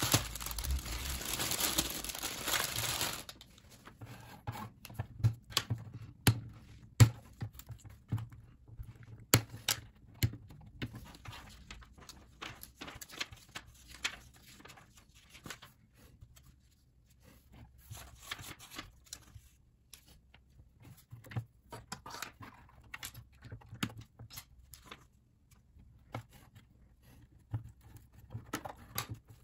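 Plastic LEGO bricks of the Death Star Trash Compactor diorama being pried apart and set down on a table: irregular sharp clicks and knocks, after about three seconds of dense rustling at the start.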